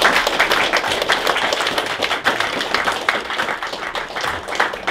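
Audience applauding, the clapping slowly thinning and fading toward the end.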